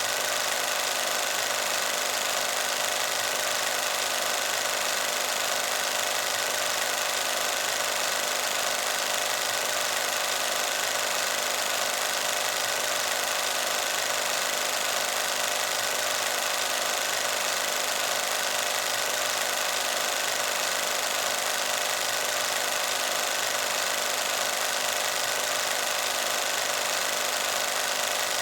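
Film projector running with a steady, rapid mechanical clatter as the film advances through the gate.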